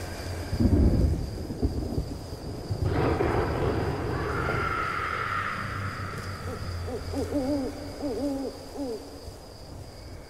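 Horror-film sound effects on the soundtrack: rumbles of thunder, then an owl hooting in a run of quavering calls about seven seconds in.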